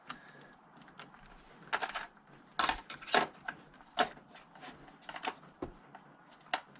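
Irregular sharp metallic clicks and clinks of hand tools and small parts being handled while screws are tightened down on a Stihl MS200T chainsaw, the loudest few strikes in the middle.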